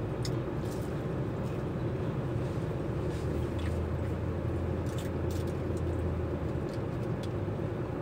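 Steady low drone of an idling truck heard inside its cab, a little stronger in the middle, with faint scattered clicks and crinkles of food and a paper wrapper being handled.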